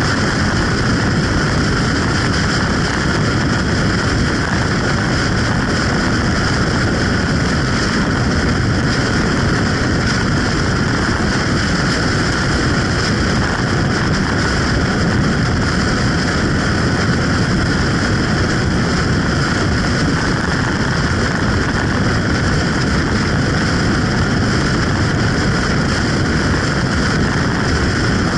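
Motorcycle cruising at road speed: a steady, loud rush of wind over the microphone mixed with engine and road noise.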